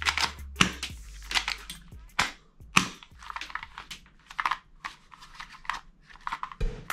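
Plastic toy guns clattering and scraping as a toy pistol is picked out of a pile and handled: a run of irregular clicks, knocks and rustles.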